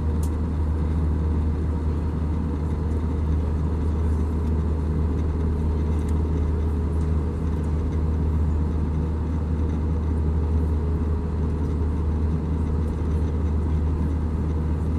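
Steady cabin drone of an Airbus A320 in flight, heard from a seat by the wing: engine and airflow noise, deepest at the low end, with a faint steady whine over it.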